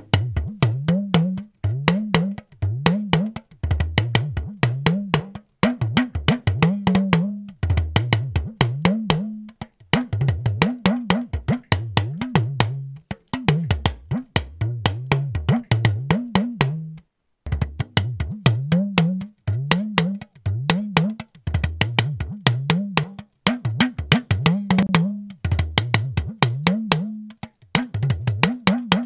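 Recorded talking drum playing rhythmic phrases of quick strikes, its pitch bending up and down with each run, with short breaks between phrases. It is heard first as captured by an AKG C3000 condenser microphone and near the end as captured by a Shure SM58 dynamic microphone.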